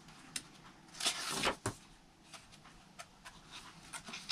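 Paper pages of a handmade junk journal rustling as they are turned and smoothed by hand: one longer rustle about a second in, with a few light paper clicks and taps around it.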